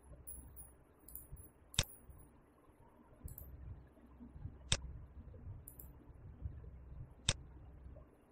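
Three sharp computer mouse clicks, a few seconds apart, over a faint low hum.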